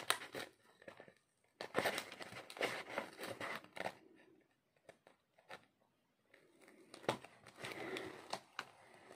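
Plastic film and paper of a diamond-painting canvas crinkling and rustling as fingers handle and pick at its edge, in irregular bursts with a few pauses.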